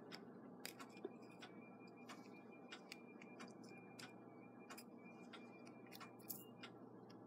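Faint ticking of a clock, fairly even at about three ticks a second, over a low steady hum.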